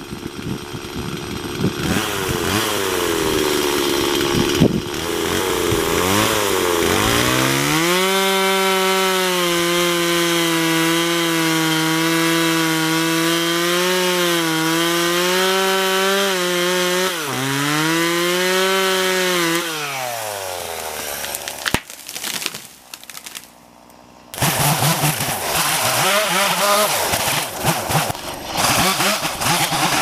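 Two-stroke chainsaw felling a dead tree: the engine revs up and down at first, then holds at full throttle through the cut, dips once, and its revs fall away about two-thirds of the way through. A few seconds later comes a loud stretch of crashing and rustling as the tree comes down through the brush.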